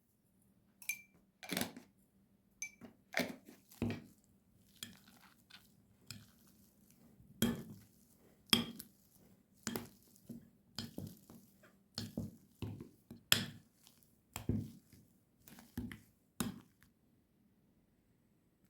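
Kitchenware clinking and knocking: dishes and utensils set down and handled in irregular strikes, roughly one a second, a few with a short bright ring.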